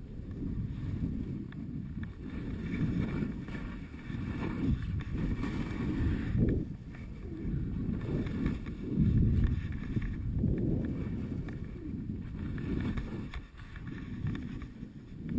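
Wind rushing over the microphone during a fast downhill ski run through snow, with the hiss of sliding over the snow. The rumble swells and falls in gusts every second or two.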